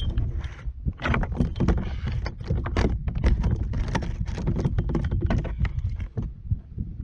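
A quick, irregular run of close knocks and thumps on the kayak, stopping about six seconds in.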